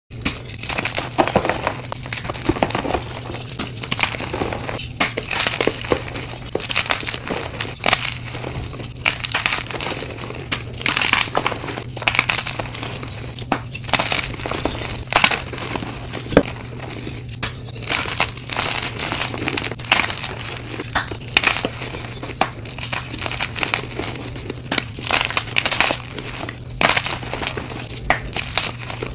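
Blocks of dyed chalk being snapped and crushed in the hands, crunching and crumbling into pieces and powder with a continuous run of sharp cracks and crackles.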